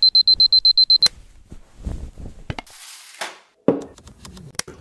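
Philips alarm clock beeping rapidly in a high tone, about ten beeps a second, cut off by a click about a second in as a hand presses down on its top. Then soft rustling, a short hiss and a few clicks follow.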